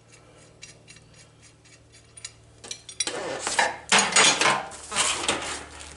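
Ratchet wrench clicking quickly and evenly as a bolt is turned out. From about halfway in, louder metallic clattering and scraping as the rear brake caliper and its bolts are handled.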